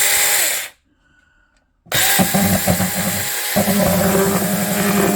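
Battery-powered 6-inch mini chainsaw (O-CONN 21V) running: a short burst that spins down within the first second, then after a pause it starts again about two seconds in and runs steadily on, its pitch shifting once midway.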